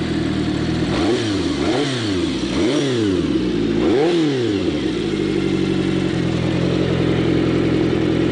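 Turbocharged 738cc air-cooled inline-four engine of a 1985 Kawasaki GPZ750 Turbo blipped four times in quick succession, about a second apart, then settling back to a steady idle. Its deep, throaty exhaust note comes from mufflers with the internal baffles removed.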